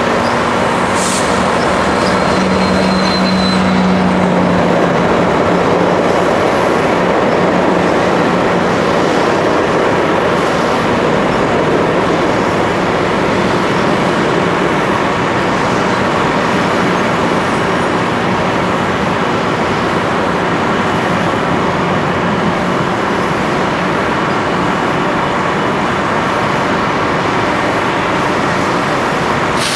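A MotivePower MP40 diesel locomotive passes close by, its engine hum strongest in the first few seconds, with a brief high wheel squeal. A long train of bilevel commuter coaches follows, rolling by with a steady rumble of wheels on rail.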